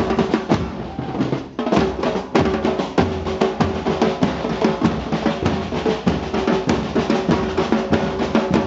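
Argentine murga street band playing: bass drums and snare drums beat a fast, dense rhythm, with trumpets sounding over the drumming. The drumming thins briefly about a second and a half in, then picks up again.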